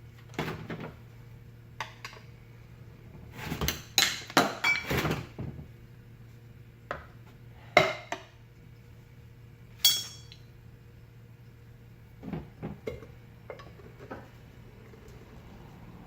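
Metal tools clinking and scraping against a fan motor's metal housing as it is pried apart, in a scattered series of sharp clanks with a dense cluster about four seconds in and a ringing strike near ten seconds.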